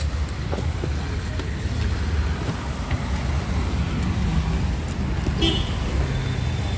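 Low steady rumble of a car heard from inside its cabin, with one brief sharp sound about five and a half seconds in.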